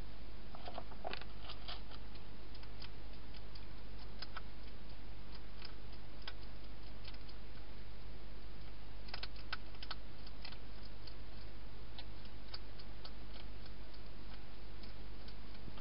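A wild hedgehog chewing its food, heard as irregular small clicks and crunches. They come in clusters near the start and again about nine seconds in, over a steady low hum.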